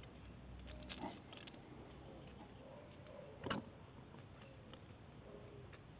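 A few faint clicks and light scraping of a steel 0.10 mm feeler gauge blade being slid through the exhaust valve clearance at the rocker adjuster of a Yamaha TTR125 engine, the loudest click about three and a half seconds in. The blade passes in and out easily, the sign of a correct valve clearance.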